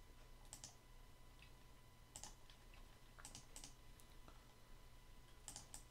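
Near silence with scattered faint clicks of a computer mouse and keyboard, about six in all, some in quick pairs, over a faint steady hum.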